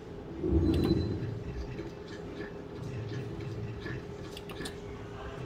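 Book of Ra Deluxe slot machine sound effects as the free-games bonus symbol is picked: a low thud about half a second in, then faint ticking over a steady tone.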